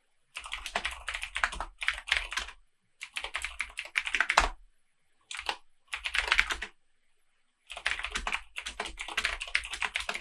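Typing on a computer keyboard: several fast runs of keystrokes with brief pauses between them.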